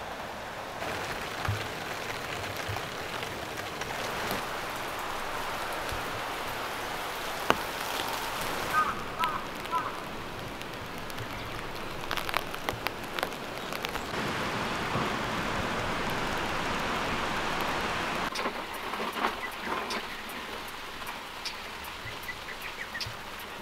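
Steady rain falling, with scattered louder drops and taps. The hiss changes in tone abruptly a few times.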